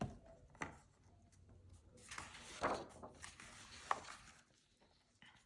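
A picture book being handled and a page turned: a few faint soft knocks and a papery rustle.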